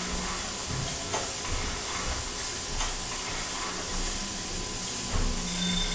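A steady hiss with a few faint clicks, and a faint high steady tone coming in near the end.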